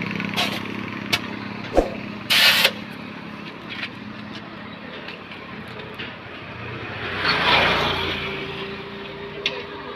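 Diesel truck engine running, with a few sharp knocks and a short loud hiss about two and a half seconds in. A swell of engine noise comes about seven seconds in.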